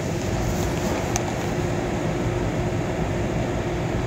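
Steady background hum and hiss of room noise, like a running fan or air conditioner, with one faint click about a second in.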